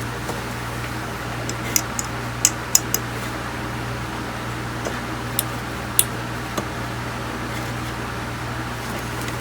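A steady low hum under a handful of small sharp clicks and taps, grouped in the first seven seconds, from small tools and electronic parts being handled while a bulged power-supply capacitor is swapped.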